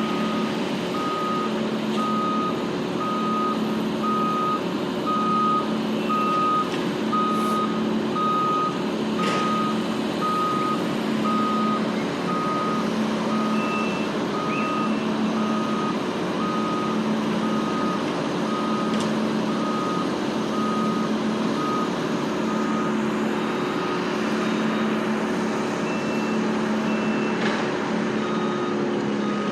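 Back-up alarm of a reversing work vehicle beeping at an even pace, about three beeps every two seconds. The vehicle's diesel engine runs steadily underneath, and a second, higher-pitched beep sounds now and then.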